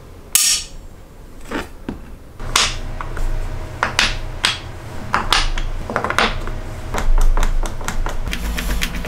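Sharp metallic clacks of a steel plate and flat countersunk magnets snapping together and being set down on a wooden board, the first clack the loudest. Near the end comes a fast run of small clicks as a hand screwdriver drives a magnet's screw, over a low steady hum.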